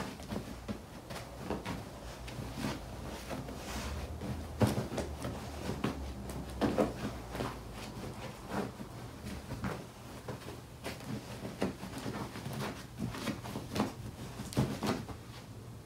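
A dog digging and pawing at a fabric dog bed: irregular scratching and rustling with soft thumps of paws on the cushion.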